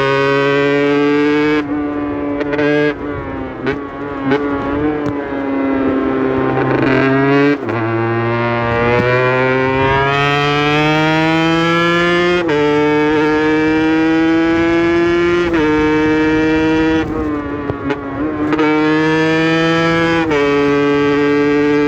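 Aprilia RS 125's single-cylinder two-stroke engine pulling hard through the gears on a hill climb. The pitch climbs and drops back sharply at each upshift, about five times, and the engine eases off twice, falling in pitch and level before pulling again.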